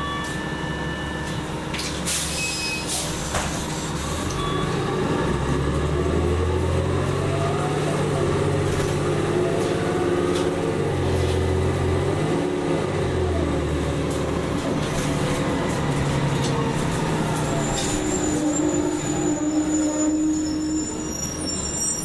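Cummins ISL-G natural-gas engine and Allison B-400R automatic transmission of an Orion VII NG CNG transit bus, heard inside the cabin. The bus accelerates, its pitch climbing and dropping back a few times as it shifts up, then eases off near the end.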